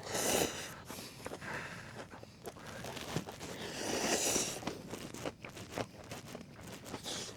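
Close-up eating sounds as instant noodles topped with kimchi are slurped and chewed: a few short noisy bursts among small crunching clicks.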